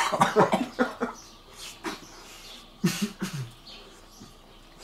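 Short wordless vocal sounds that rise and fall in pitch, in two spells: one at the start and one about three seconds in. A faint steady hum runs beneath them.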